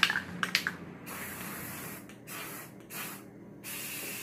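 Aerosol spray-paint can spraying in a series of short hissing bursts with brief pauses between them, with a couple of sharp clicks in the first half-second.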